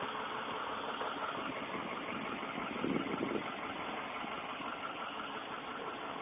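School bus engine idling steadily at the stop, with a brief louder burst about three seconds in.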